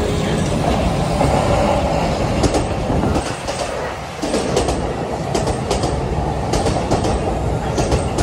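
A JR E531-series electric train pulls into the station alongside the platform, its running noise steady. From a couple of seconds in, the wheels click irregularly over the rail joints.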